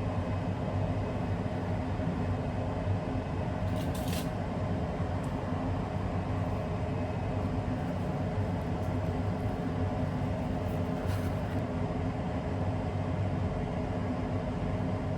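Steady low drone of a moving vehicle heard from inside, with a constant hum and a couple of faint clicks. The sound starts and stops abruptly.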